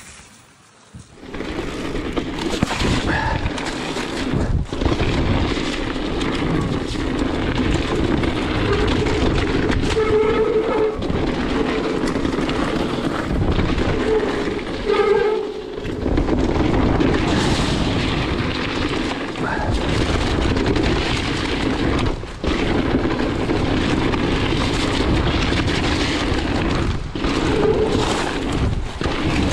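Electric mountain bike ridden fast down a wet gravel trail: continuous rush of wind on the microphone mixed with tyres running over gravel and the bike rattling. A brief pitched whine cuts in twice, about ten and fifteen seconds in.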